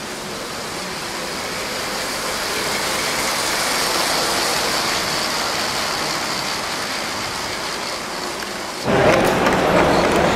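LEGO trains whirring along plastic track: a steady hiss that swells as a long train passes close and then fades. About nine seconds in it changes abruptly to the louder rumble of a large-scale model electric locomotive rolling on metal track.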